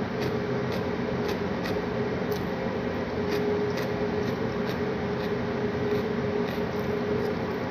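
A steady background hum with a constant low tone, over which come small irregular clicks of eating by hand: fingers picking food off the plate and chewing.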